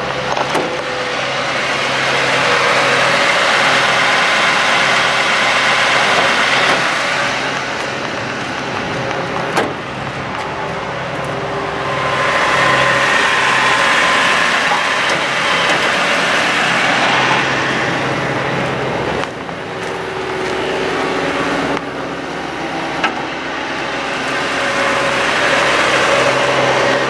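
Bucket truck's engine running with the PTO engaged, driving the aerial lift's hydraulic pump: a steady engine sound that grows louder twice, for a few seconds each time.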